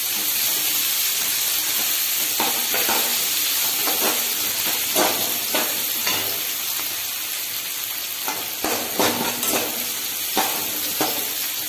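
Onions, chillies and ginger sizzling in hot oil in a metal kadai, with a perforated metal ladle scraping the pan again and again as they are stirred.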